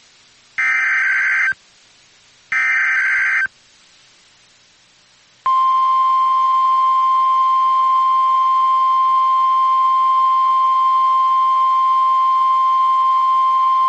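Emergency Alert System SAME header data bursts, the last two of a set of three, each about a second of harsh buzzy warbling. After a two-second pause, the NOAA Weather Radio warning alarm tone sounds: one steady, loud, high beep that holds unbroken. It announces a warning-level alert, here a practice tornado warning.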